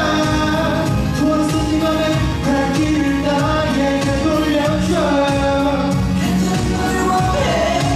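A male vocalist singing into a handheld microphone over a backing track, with long held notes.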